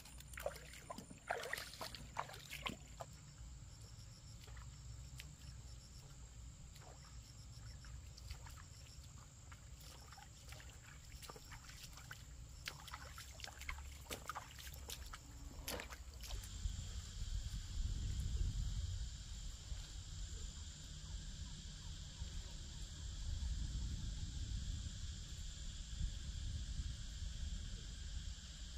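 A steady, high-pitched insect chorus that grows fuller about halfway through, over a low rumble that swells twice. In the first half come scattered clicks and rustles of someone moving about.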